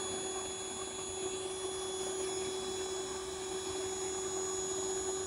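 Wet/dry shop vacuum running steadily as the suction source of a bucket bee vacuum, drawing air and bees through the hose, with a steady hum and a high whine.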